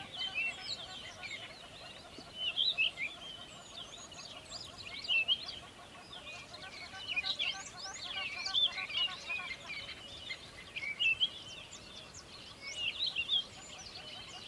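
Wild birds chirping and twittering, many quick high notes in clusters every second or two, over a fainter, lower chatter.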